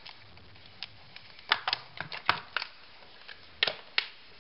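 Packaging being cut open with a knife: sharp cracking and snapping, a few faint clicks first, then a quick run of cracks about one and a half to two and a half seconds in, and two more near the end.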